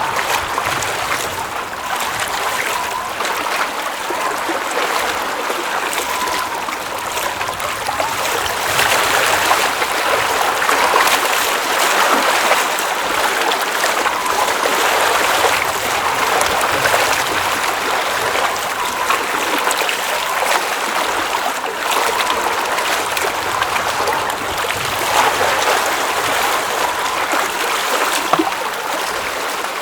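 Water running and trickling at a mountain lake, a steady, even sound.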